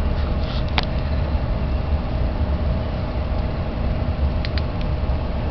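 Steady low mechanical hum with a faint steady whine above it, a machine such as a fan running in the background, with a light click about a second in and two faint ticks near the end.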